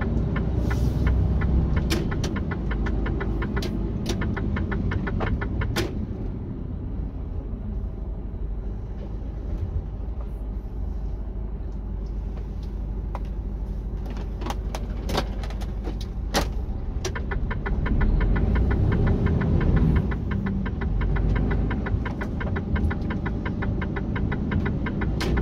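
Inside the cab of a Mercedes-Benz Actros semi-truck, a steady low diesel engine rumble. It turns quieter while the truck idles at a red light through the middle and grows louder again as it pulls away in the last few seconds. Now and then there are sharp clicks and stretches of fast, even ticking.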